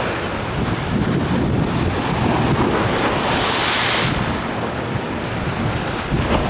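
Wind buffeting the microphone over the wash of small ocean waves breaking against shoreline rocks and a seawall. A wave surges in with a brief hiss about three and a half seconds in.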